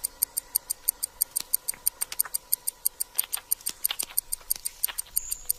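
Quick, even clock-like ticking, about five ticks a second: a timer sound effect standing for the Venus flytrap's trigger countdown after one hair has been touched.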